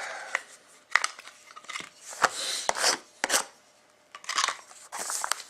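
Plastic shrink-wrap being torn and crinkled off a sealed box of trading cards: irregular sharp crackles and short rasping tears, pausing briefly about four seconds in.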